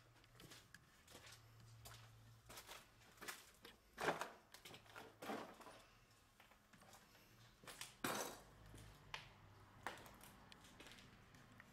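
Faint, irregular footsteps crunching and scuffing on grit and fallen plaster on a concrete floor, with louder scuffs about four and eight seconds in.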